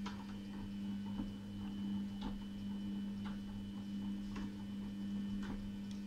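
Front-loading washing machine tumbling a wash load: a steady motor hum with a light tick about once a second.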